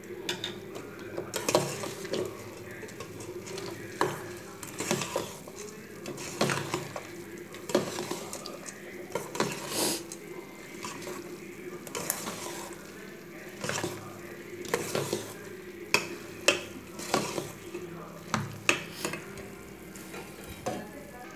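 Metal spoon stirring puffed rice and wet masala in a stainless steel bowl, with irregular scrapes and clinks of the spoon against the bowl about once a second.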